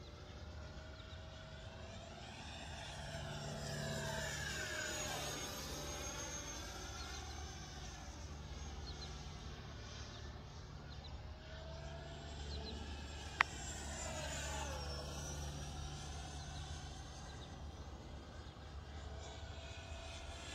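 The twin 64 mm electric ducted fans of an E-flite F-15 Eagle RC jet, heard from the ground as the jet flies overhead. Their whine swells and fades and sweeps up and down in pitch as the jet passes, loudest twice. One sharp click comes about two-thirds of the way in.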